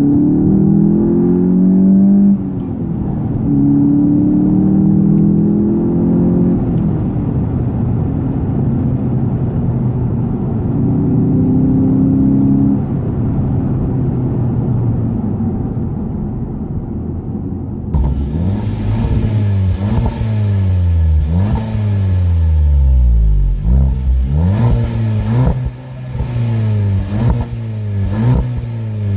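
2018 Volkswagen Golf GTI's 2.0-litre turbocharged four-cylinder accelerating, its pitch climbing and dropping at a gear change about two seconds in, then pulling again before settling to steadier running. About two-thirds of the way through, the sound changes abruptly to the engine being revved in quick blips, rising and falling about once a second.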